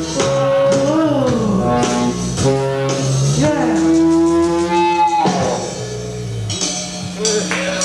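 Live rock music: electric guitar and drums playing on with a sung vocal holding the song's last word "close", then a shouted "Yeah", the band playing out the end of the song.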